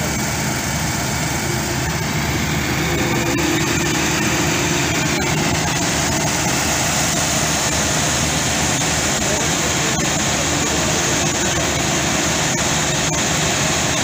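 Heavy diesel engine of a concrete mixer truck running steadily at idle.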